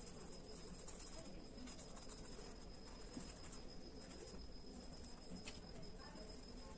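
Black oil pastel scratching faintly on paper in short shading strokes, over a steady high-pitched whine.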